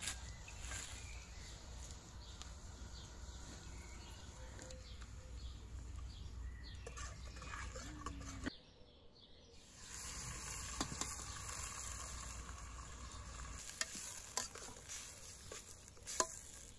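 Rice sizzling in oil in an aluminium pot over a wood fire, with a metal spoon stirring and clicking against the pot. The sizzle drops out briefly about halfway through.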